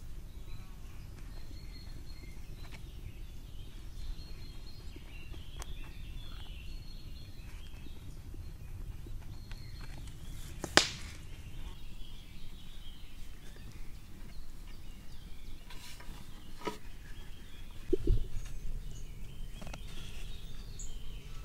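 Birds chirping outdoors over a steady low rumble, with quiet handling sounds of fresh dumpling dough being pinched and pressed on a wooden board. A sharp click comes about halfway through and a single thud near the end.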